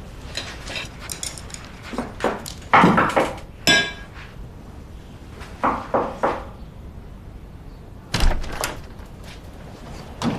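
Irregular knocks and thuds of objects being handled, with a short ringing clink about a third of the way in.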